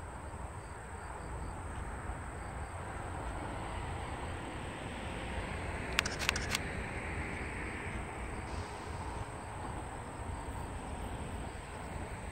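Steady outdoor noise with wind on the microphone and the faint, slowly building rumble of a distant approaching Seoul Metro Line 4 electric commuter train. Three sharp clicks come in quick succession about six seconds in.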